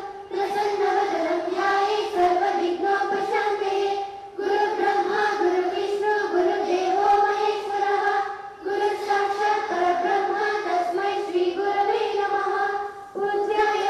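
A group of schoolchildren singing a prayer in unison into microphones, in held phrases of about four seconds with short breath breaks between them.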